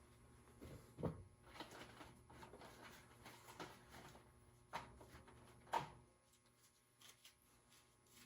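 Faint handling sounds: soft rustling and three sharp knocks, about a second in and twice near the middle, as things are picked up and set down.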